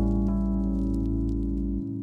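Background music: soft held chords over a deep bass note, with a new chord entering just after the start and the bass dropping away near the end.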